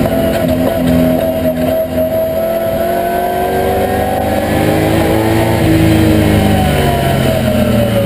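TVR Tuscan V8 race car's V8 engine heard from inside the cabin under hard running, its note climbing as it revs up through the middle and dropping again near the end as the driver comes off the throttle.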